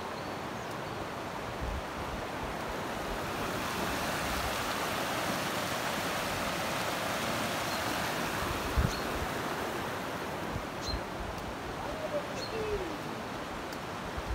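River water running over rocks: a steady rushing hiss that grows louder in the middle and eases again. A few faint short high chirps and one low thump are heard over it.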